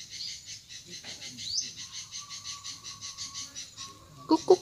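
Insects chirring in a fast, even pulse of about six beats a second, high-pitched, with a faint held tone in the middle; near the end come quick repeated "kuk kuk" calls.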